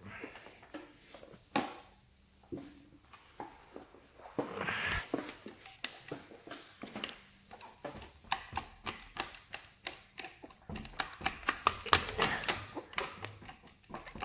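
Irregular clicks, knocks and rustles of a rotary polisher being handled, then a quick run of taps as its foam pad is dabbed against a plastic headlight lens to spread the wax, with the polisher not running.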